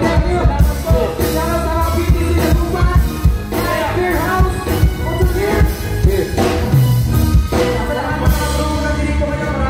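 Live band playing loud amplified music, drum kit and electric guitars, with vocals into microphones over the top.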